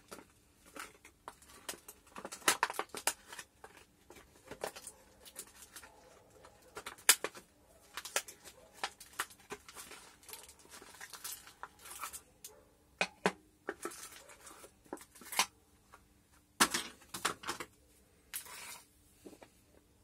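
Clear plastic blister packaging crackling and crinkling as gloved hands pry it open and pull the LED light out: irregular sharp clicks and crackles, with a brief lull about three quarters of the way through.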